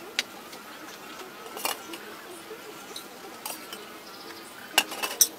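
A few sharp clicks and knocks, the two loudest near the end, over a faint steady buzzing.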